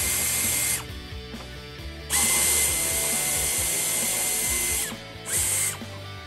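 Small power drill/driver running in three bursts, a steady high whine that winds up and down at each start and stop; the middle burst is the longest, nearly three seconds. It is loosening the hose clamp on the engine's air intake tube.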